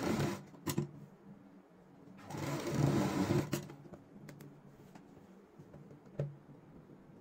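Sewing machine stitching piping onto a kurta neckline in two short runs: one right at the start and a longer one of about a second and a half near the middle. A few single light clicks fall between the runs.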